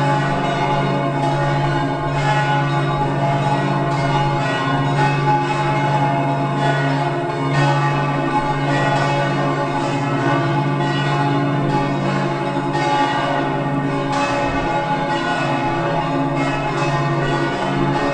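Several church bells ringing together in a full peal, their strokes falling irregularly several times a second over the lingering ring of the bells.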